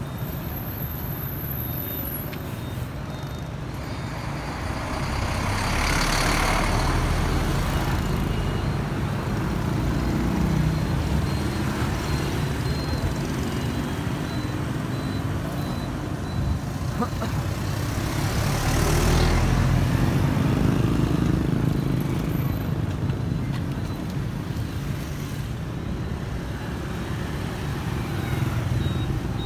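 Street traffic: vehicle engines running steadily, with a passing vehicle swelling louder and fading about six seconds in, and another near twenty seconds.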